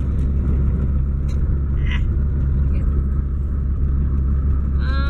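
Loud, steady low rumble of a car's road and engine noise, heard from inside the cabin while driving. A brief voice sound comes near the end.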